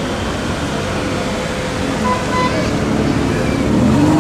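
Aston Martin DB11 engine running as the car rolls slowly away, over a steady hum of street noise; it grows a little louder near the end.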